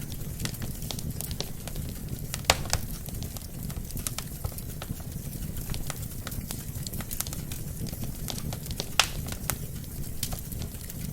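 Burning wood logs crackling in a fireplace: a steady low rumble of flame with frequent small snaps, and two louder snaps, one about two and a half seconds in and one about nine seconds in.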